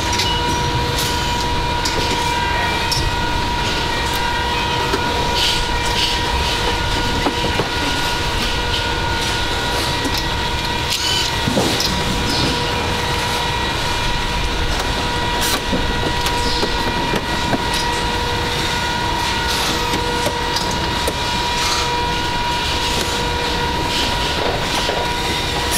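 Car assembly plant floor noise: a steady machinery din with a constant high-pitched hum, dotted with short clicks and clanks from work on the line.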